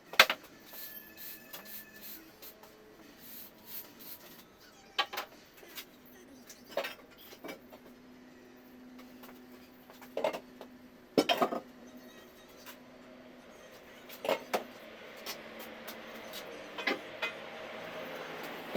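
Scattered knocks and clatter of objects being picked up, moved and set down while a garage corner is cleared out, with a few louder clunks spaced seconds apart.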